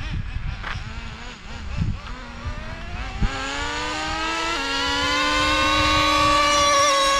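Traxxas Slayer Pro 3.3 nitro RC truck's small two-stroke nitro engine running at high revs and accelerating, its whine rising from about two seconds in. It drops a step in pitch about halfway, as when the two-speed transmission shifts into second gear, then holds a steady high pitch that creeps upward.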